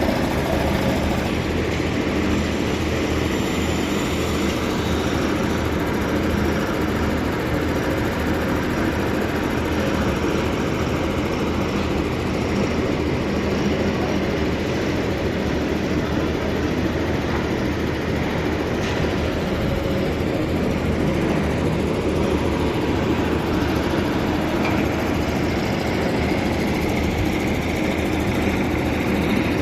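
An engine running steadily, a constant low rumble with a wash of noise over it and no change in speed.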